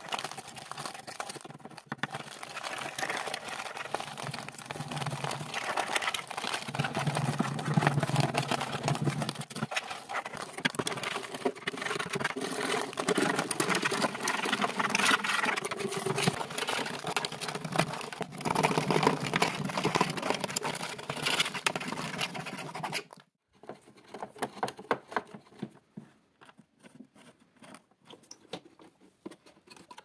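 Small metal scraper chipping and scraping a dried, cracked crust of dirt off a vacuum cleaner's casing: a dense run of scratching and crumbling. It cuts off suddenly about three-quarters of the way through, and scattered light clicks and taps follow.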